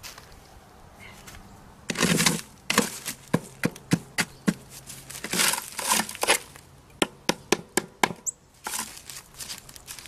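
A small metal hand tool scraping and chipping along the edge of a cured hypertufa casting to loosen it from its mold: a quick run of scrapes and sharp clicks, a few a second, from about two seconds in to about eight seconds in.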